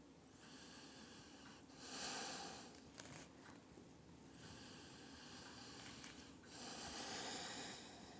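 A person's slow, deep breathing through the nose: two full breaths, each a soft rush of air that swells louder, about two seconds in and again about seven seconds in.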